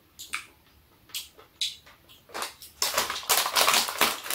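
Crinkling and crackling plastic as a packet of seasoned laver (gim) is torn open, loudest over the last second and a half. Before that, a few light clicks of a spoon against a bowl.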